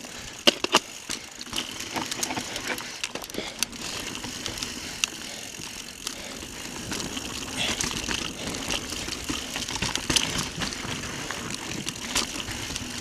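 Mountain bike descending a dirt trail at speed: tyres rolling and crunching over the ground, with frequent sharp knocks and rattles from the bike as it hits bumps.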